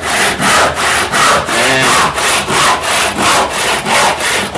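Wooden-handled handsaw cutting through a timber board with regular push-and-pull strokes, about two to three a second. The strokes are kept slow near the end of the cut so the offcut does not break off.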